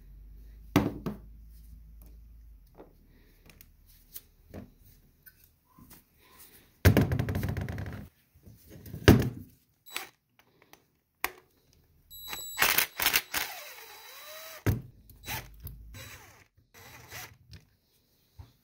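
A cordless driver spinning out screws from a Haldex tractor protection valve body in two short runs, among clicks and knocks of small metal parts handled on a steel workbench.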